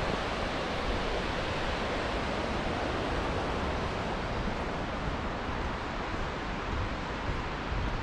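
Steady rushing of the Yudaki falls' water, an even roar with no breaks.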